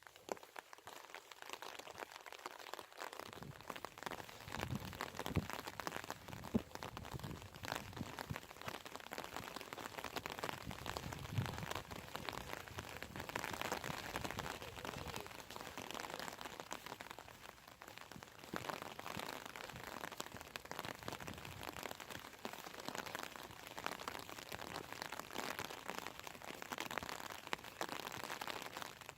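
Rain falling steadily, a dense patter of drops, with a few low thuds in the first half.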